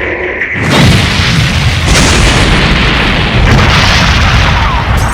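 Cartoon action sound effect: a loud explosion-like boom about three-quarters of a second in, followed by a sustained crashing noise with further surges, over faint music.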